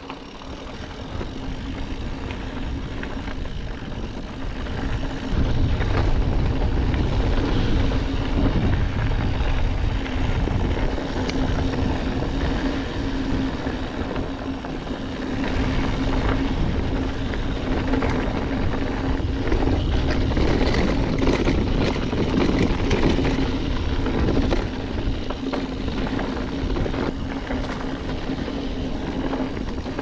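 Mountain bike descending a dirt trail, heard through a GoPro's microphone: wind rushing over the microphone and tyre noise on the dirt, louder from about five seconds in, with a steady buzzing hum underneath.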